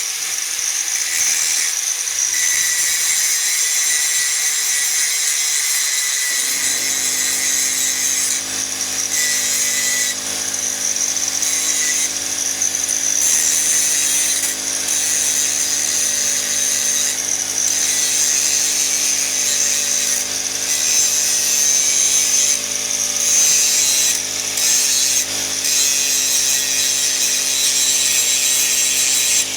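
Angle grinder grinding steel, a continuous loud hissing grind, as welded-on license-plate bolts are ground down. A steady low hum joins about six seconds in.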